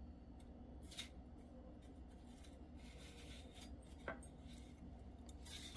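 Faint rustles, light scrapes and a few small crinkly snaps of chicken strips being handled and pressed into their coating, the sharpest one near the end, over a low room hum.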